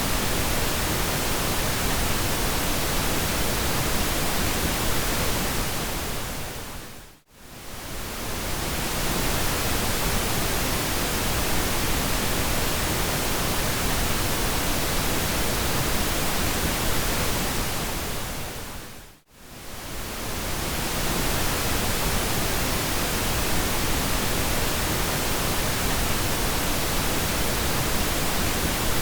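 Steady pink noise, an even hiss across all pitches, that fades out to near silence and back in twice, about 7 and 19 seconds in.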